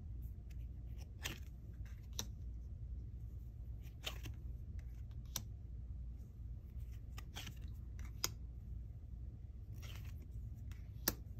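Foil trading cards handled and flipped through one at a time: short, faint swishes and clicks of card stock sliding and tapping every second or two, over a low steady hum.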